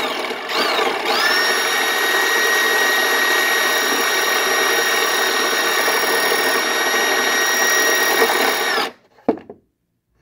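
Motor-driven piston ring filer's abrasive wheel, run in reverse, spinning up with a rising whine and then running steadily while filing a piston ring's end gap. It stops suddenly about nine seconds in, and a short knock follows.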